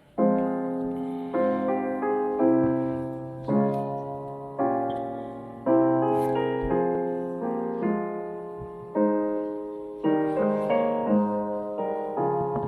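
Solo piano playing slow, gentle chords, a new chord struck about every second and left to fade.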